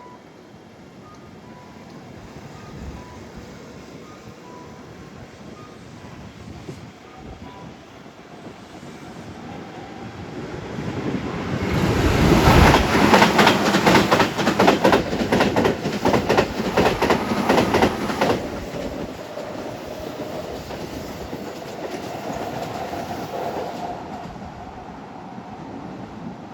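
Level crossing warning bell ringing faintly, then a Keihan 8000-series electric train passing at speed, its wheels clacking rapidly over rail joints for about seven seconds. After it has gone, a rising electric motor whine follows as the Keihan 13000-series train pulls away.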